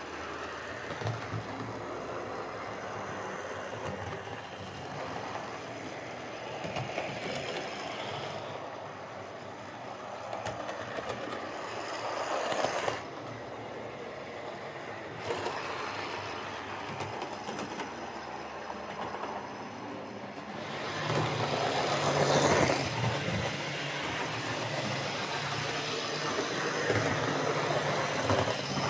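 Hornby M7 0-4-4 OO gauge model tank locomotive, freshly serviced and greased, running round a model railway track. The sound swells and fades as it passes near and away, loudest about three quarters of the way through.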